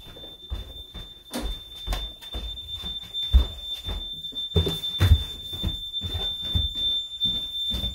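Honeywell home alarm system sounding one steady high-pitched alarm tone after a burglary zone, an upstairs window, has been tripped in a test; the tone cuts off at the very end when the system is disarmed. Under it, bare footsteps thud on wooden stairs.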